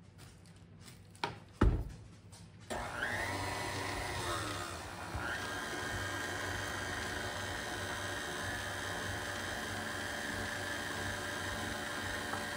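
A couple of knocks, then a KitchenAid stand mixer switched on about two and a half seconds in; its motor comes up to speed and runs steadily, mixing a wet bread dough.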